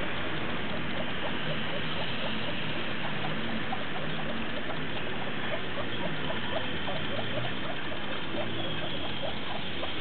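Steady hiss of river water with many short, faint chirping ticks scattered irregularly throughout.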